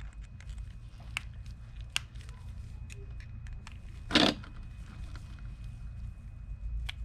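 Small clicks and scrapes from hand work on a corroded, seized fishing reel whose parts and bearings are stuck with rust, with one short louder rasp about four seconds in. A low steady hum runs underneath.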